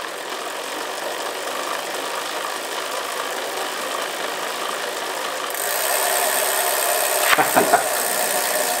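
Bicycle rear wheel spinning freely in a repair stand with a steady mechanical whirr and rattle, thrown out of balance by two clip-on wheel lights so that it shakes. It gets louder about halfway through, and a few sharp knocks come near the end.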